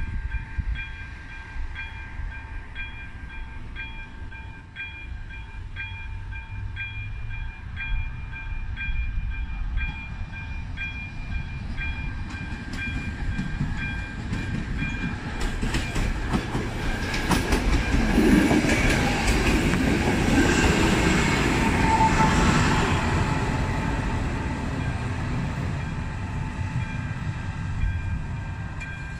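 A first-generation electric railway-crossing bell rings steadily, pulsing about once a second. From about 15 s in, a diesel railcar comes past with rail clatter and engine rumble, loudest around 18–22 s, then fades back under the bell.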